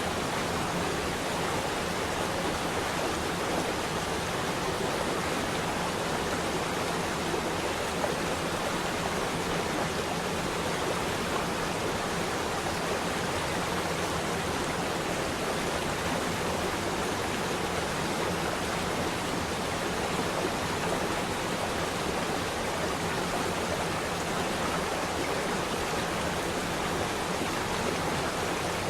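Flowing water rushing steadily, a stream or small falls, with no change over the whole stretch.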